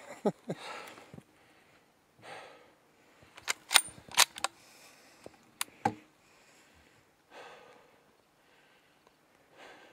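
Two short falling chirps on an elk cow call, then a rifle shot among a cluster of sharp cracks and clicks about three and a half to six seconds in.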